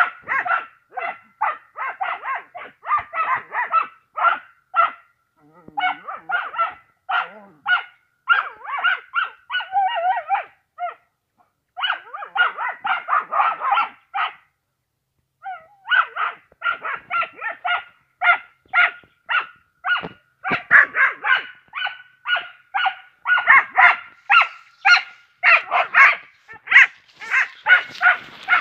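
An animal calling in a rapid series of short calls, about two to three a second, in runs broken by brief pauses.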